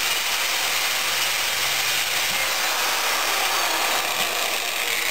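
Electric drill running steadily while it bores a hole into copper pipe.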